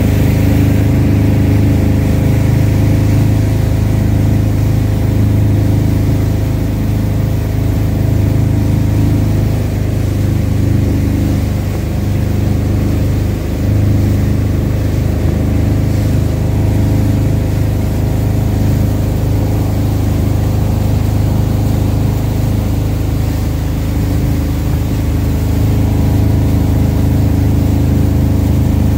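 Tow boat's engine running steadily at towing speed: a deep, even drone, with a rushing noise from the wake and water.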